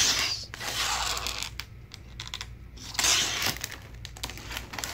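CGC graded comic slabs in Mylar bags being flipped through and pulled from a cardboard box: crinkling of the bags and light clacks of the hard plastic cases. Two bursts of crinkling, one at the start and one about three seconds in, with scattered clicks between.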